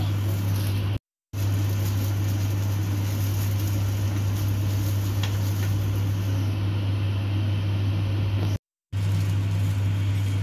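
Steady low hum with an even rushing noise, like a kitchen fan motor running. The sound drops out to silence twice, briefly, about a second in and again near the end.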